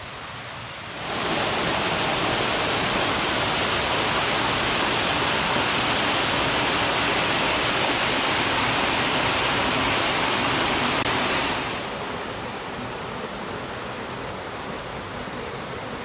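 Small creek waterfall spilling over sandstone ledges in a steady rush of water. It comes in louder about a second in and drops to a fainter rush about three-quarters of the way through.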